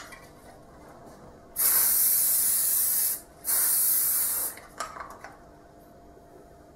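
Aerosol hairspray can spraying a section of hair in two bursts: one of about a second and a half, then a short pause, then one of about a second. The hair is being soaked with spray so it can be teased and shaped. A few light clicks follow.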